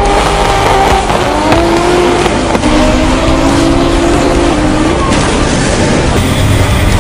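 Drift cars sliding in tandem: engines held at high revs, with the pitch rising and falling as the throttle changes, over squealing tyres.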